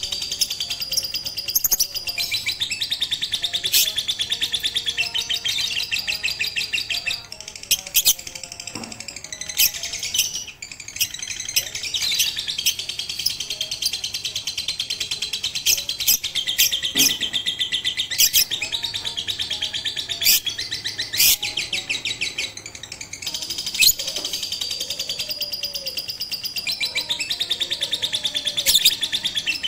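Lovebird song: a long, very fast chattering trill, breaking off briefly a few times, with sharp high chirps standing out over it.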